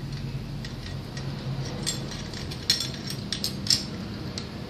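Small, sharp clicks and clinks of airsoft rifle parts being handled and fitted together, a few scattered taps with a cluster of them past the middle, over a steady low hum.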